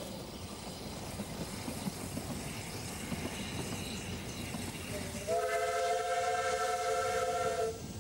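Ffestiniog Railway double Fairlie steam locomotive working uphill with its train, a steady running noise, then one steady chord-like steam whistle blast of about two and a half seconds, starting about five seconds in.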